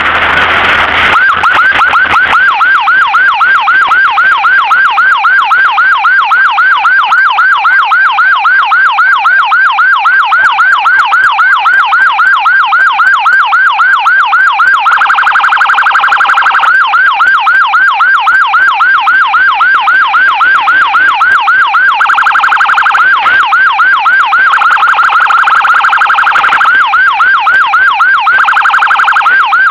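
Electronic emergency siren sounding a rapid yelp, fast even rising-and-falling wails several times a second, with a steady held tone joining in now and then. It is the siren of an ambulance escort clearing traffic.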